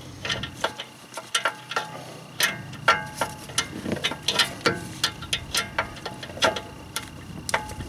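Ratchet wrench clicking in short, irregular strokes while a brake caliper carrier bracket bolt is run in and tightened.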